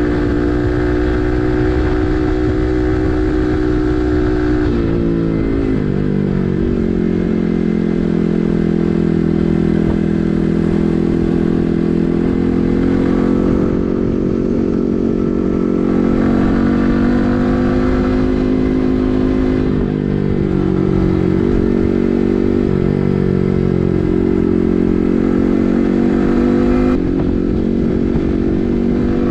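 Yamaha MT-15's single-cylinder engine through an SC Project full-system exhaust, ridden at a steady cruise. Its pitch drops about five seconds in and holds, dips twice around twenty seconds in, and rises again near the end.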